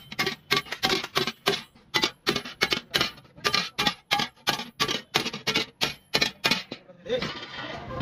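Hand hammer striking a steel plate in quick, even blows, about four a second, each with a short metallic ring. It is the plate being beaten into a kassi (spade) blade. The blows stop near the end for about a second of hissing, rasping noise.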